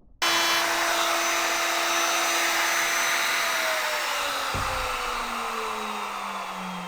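Handheld electric wood router running at full speed with a high steady whine, its pitch then falling steadily from about three and a half seconds in as the motor winds down.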